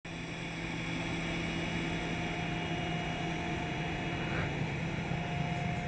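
RQ-4B Global Hawk taxiing, its single Rolls-Royce F137 turbofan running at low power: a steady jet rush with a few held tones in it.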